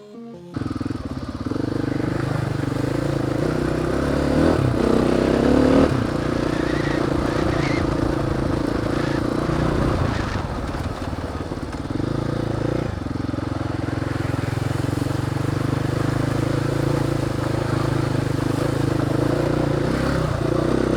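Dirt bike engine running while riding, its pitch rising and falling with the throttle, over a steady hiss of wind and road noise.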